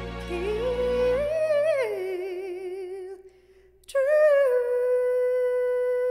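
A woman singing a ballad line with heavy vibrato. Her voice slides up and back down over a low backing that drops out about a second in. After a short break, she holds one long note.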